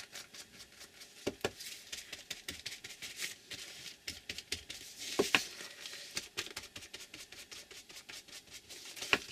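Paper edges being distressed: quick, repeated scratchy scraping strokes along the edge to rough it up, with a few louder clicks.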